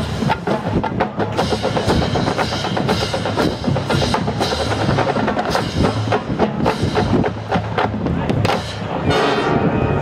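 A marching band percussion section plays a busy passage of rapid drum hits over the band. About nine seconds in it gives way to a held, sustained chord from the band.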